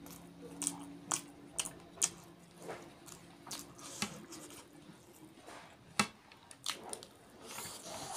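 Close-miked eating sounds of a person chewing rice and curry eaten by hand: wet, squishy chewing and lip smacks with a string of sharp clicks at irregular intervals, the loudest about six seconds in.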